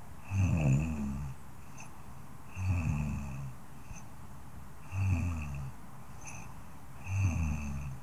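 A woman snoring softly, four snores in a steady rhythm a little over two seconds apart.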